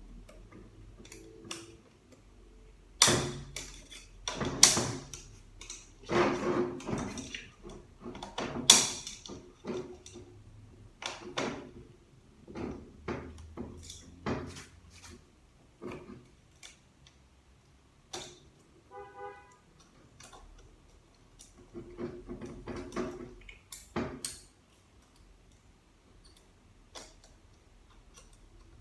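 Metal hand tools clicking, scraping and knocking against the internal parts of a ZF automatic transmission in uneven bursts, as a stubborn retaining clip is worked loose. A brief metallic ring sounds partway through.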